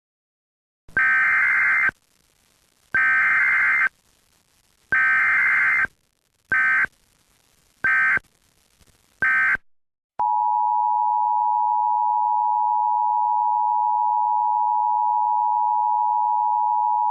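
Emergency Alert System test tones: six harsh digital data bursts, three about a second long followed by three short ones, then from about ten seconds in the steady, even two-tone EAS attention signal.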